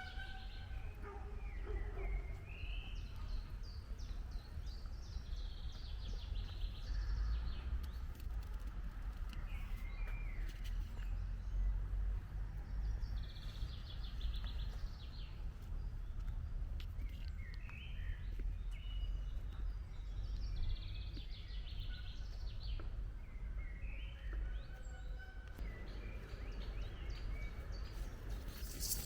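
Wild birds singing and calling on and off, several overlapping songs with quick trills and short whistled notes, over a steady low rumble.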